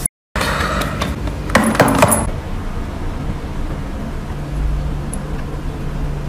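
Brief silence at a cut, then a few light clinks and rattles in quick succession about one and a half to two seconds in, over a steady low hum.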